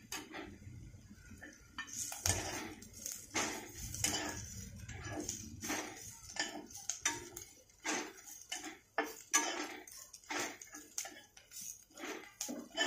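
Spatula scraping and knocking against a kadhai in irregular strokes as onion and coconut are stirred while they roast for a masala paste.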